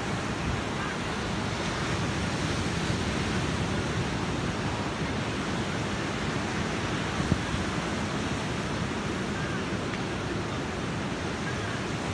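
Ocean surf breaking and washing up the beach in a steady rush. One short knock about seven seconds in.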